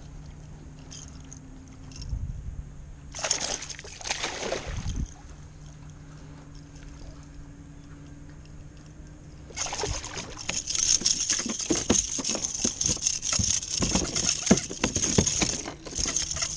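Hooked fish splashing at the surface beside a plastic kayak: a short burst of splashing a few seconds in. From about ten seconds in there is a long run of quick thrashing splashes and knocks as the fish comes aboard and flops about.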